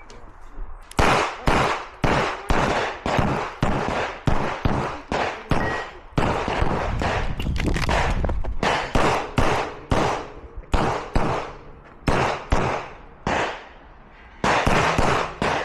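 9mm CZ Shadow 2 pistol fired rapidly in pairs and strings on an IPSC stage, each sharp shot trailing off briefly. The shooting begins about a second in and pauses for a moment near the end before a last quick string.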